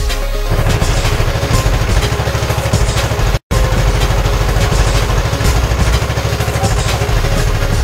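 Engine of a covered lake tourist boat under way, running steadily with a rapid knocking beat and a heavy low drone. It cuts out completely for a split second about three and a half seconds in.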